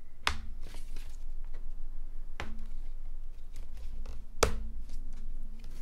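Hard plastic snap-on shell clicking into place over the lid of an aluminium unibody MacBook Pro 13-inch as its edges are pressed: three sharp snaps about two seconds apart, the last the loudest, with a few lighter clicks between.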